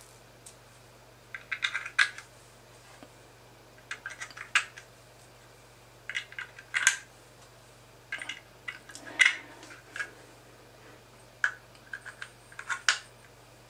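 3D-printed plastic parts and small plastic pins clicking and knocking together as they are fitted by hand, in short clusters of sharp clicks every second or two.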